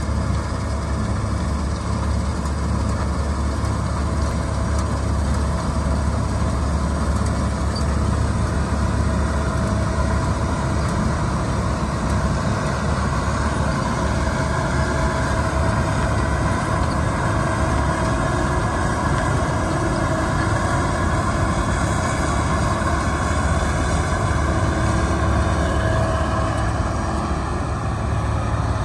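New Holland TX66 combine harvester running steadily while threshing wheat: the engine and threshing machinery drone at an even level.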